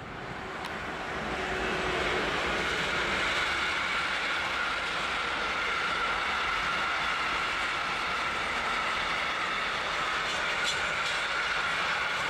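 Freight train of sliding-wall box wagons rolling past with a steady rumble and clatter of wheels on rail, carrying a high ringing tone. The sound swells over the first two seconds as the train comes level, then holds steady, with a couple of sharp clicks near the end.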